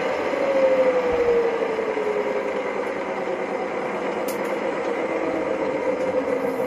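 Small metal lathe running, its motor and spindle giving a steady hum whose tones slide down in pitch over the first couple of seconds and then hold, with a faint click about four seconds in.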